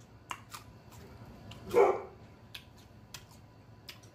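A dog barks once, about two seconds in. Short, crisp clicks from celery being chewed are scattered through the rest of the time.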